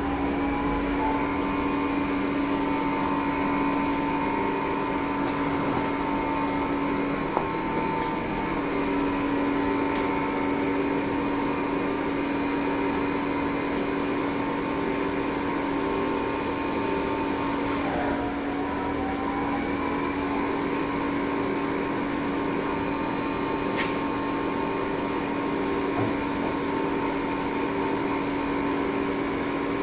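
CNC lathe running a machining program, its spindle drive giving a steady whine. About eighteen seconds in, the pitch dips and climbs back as the spindle speed changes with the tool's position.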